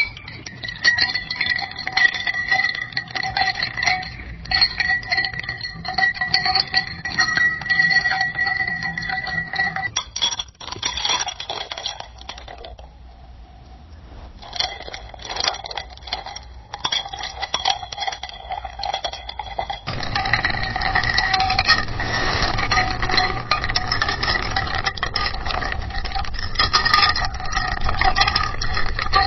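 Ice cubes clinking against a drinking glass: a constant run of quick clinks, each leaving a ringing glass tone. Three separate takes follow one another, and the middle one thins out and goes quieter for a couple of seconds.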